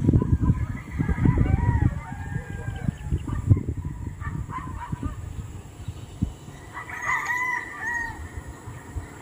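Roosters crowing, several crows overlapping in the first two seconds and another clear crow about seven seconds in. A loud low rumble sits under the first two seconds and then fades.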